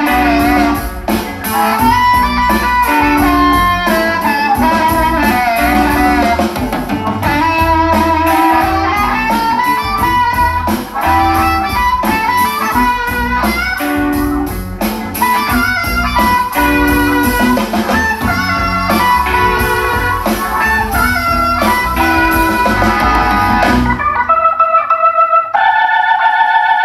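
Guitar-led music with drums playing through a Yamaha home theater system: DSP-AX430 amplifier in 5-channel stereo mode, with satellite speakers and a YST-SW005 subwoofer. About three seconds before the end the bass drops out, leaving a thinner passage of held notes.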